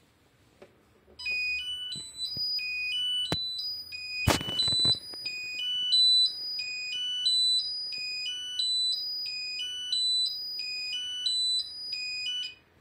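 Alarm sounder on a Granit-24 fire alarm panel stand giving an alarm signal: a high-pitched stepped melody of a few tones, repeating over and over. It starts about a second in and stops just before the end, with a click and a short loud clatter about four seconds in.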